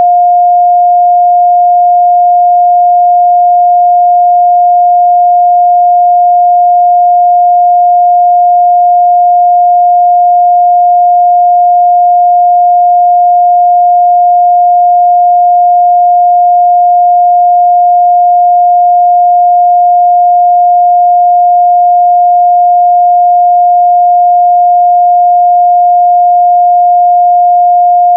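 A steady, unbroken 708 Hz sine-wave test tone, a single pure midrange pitch at constant loudness.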